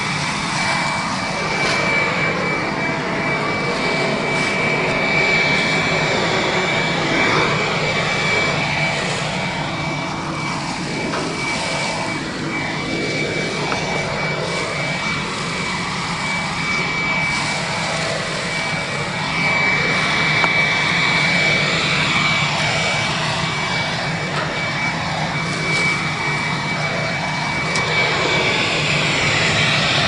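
Ridgid wet/dry shop vacuum running steadily, its motor giving a steady high whine.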